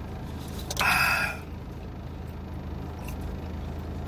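Steady low hum inside a car's cabin, with one short breathy sound from a person drinking from a paper cup about a second in.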